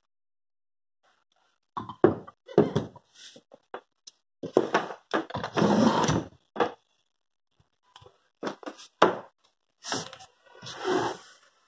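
Handling noise from a power tool being put down and moved on a wooden floor: an irregular run of knocks and thunks, with a longer scrape a little past the middle and another near the end.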